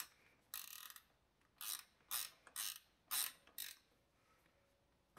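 Six short bursts of ratcheting clicks, most of them about half a second apart, as the saddle clamp on top of a bicycle seat post is worked to level a nose-up saddle.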